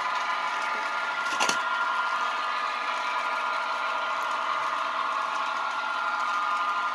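Model train's small electric motor and gears running with a steady whine, with one sharp click about a second and a half in.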